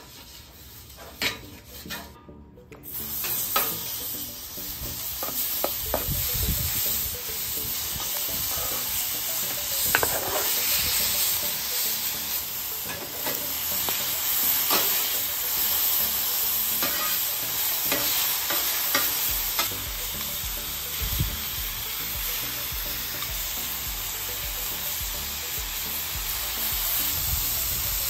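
Cubed beef tenderloin steak bites searing on a hot flat-top griddle: a steady sizzle, with the scrape and clink of a metal spatula tossing them. The sizzle comes in about three seconds in, after a quieter stretch of the spatula spreading oil.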